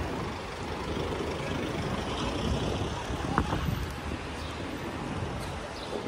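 Outdoor street ambience with a Mercedes van driving slowly past close by over block paving. There is one short sharp click a little over three seconds in.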